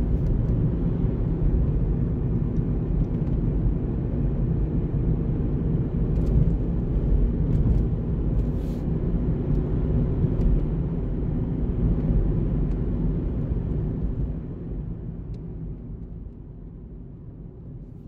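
Steady low rumble of road and engine noise from a car driving on a highway, with a few faint clicks. The rumble dies down over the last few seconds.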